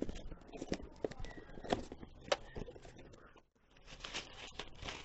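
Cardboard shipping box being cut open with a blade: scattered clicks and scrapes on the packing tape and cardboard, then, after a brief break, rustling of the opened flaps and crumpled packing paper.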